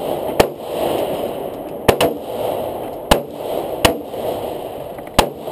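Handgun shots, about six of them at an uneven pace, two of them close together near the middle.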